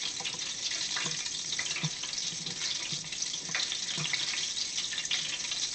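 Tabletop deep fryer heating its oil under the closed lid: a steady hiss with fine crackling, and a few soft knocks.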